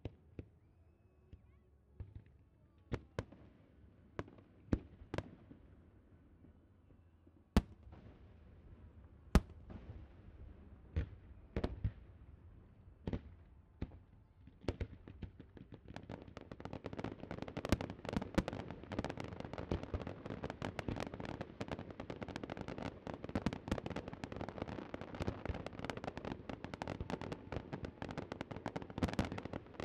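Fireworks going off: separate sharp bangs every second or so, then, a little past halfway, a dense, rapid barrage of pops and crackles that keeps going.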